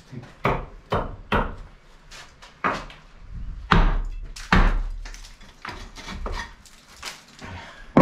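Hammer blows knocking a wooden batten out of a stone wall: a run of sharp wooden knocks at an uneven pace, the loudest in the first five seconds, lighter ones after.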